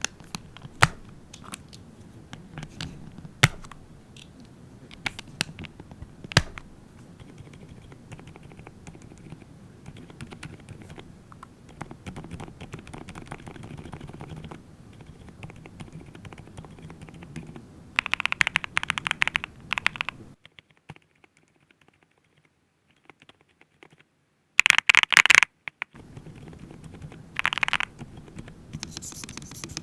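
Typing on a NuPhy Halo65 V2 mechanical keyboard: a few sharp single key strikes at first, then softer steady keystrokes, then short bursts of fast typing separated by a brief silent pause.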